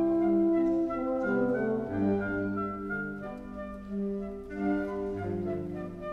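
Live wind and brass ensemble playing a concert overture: sustained chords with moving lines over them, loudest in the first second.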